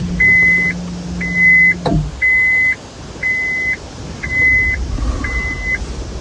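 Electronic beeps: six in a row, about one a second, each about half a second long at the same high pitch. A low steady hum sits under the first two seconds and stops with a click.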